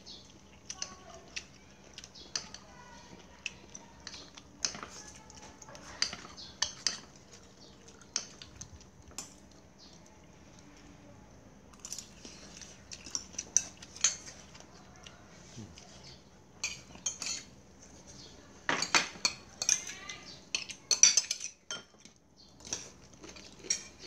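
Metal spoons and a ladle clinking and scraping against ceramic bowls and plates as food is served and eaten. The clinks come scattered, busiest in the second half.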